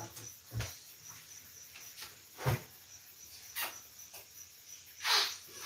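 A cricket chirping steadily in a high, even pulse, about four chirps a second. Over it come four short knocks and clatters of kitchen handling, the loudest near the end.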